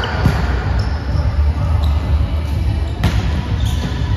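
Volleyball being played in an echoing gym: one sharp ball strike about three seconds in, over a constant low hum and busy hall noise.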